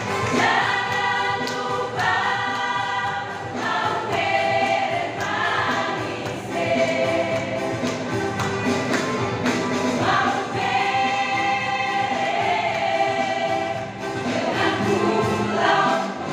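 Women's choir singing together in phrases of long held notes, with short breaks between phrases.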